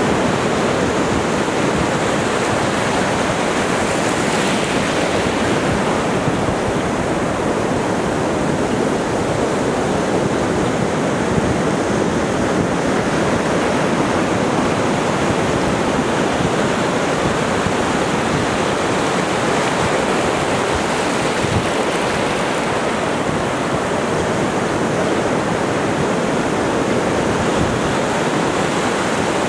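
Ocean surf breaking and washing up the sand at the water's edge: a steady rushing of waves.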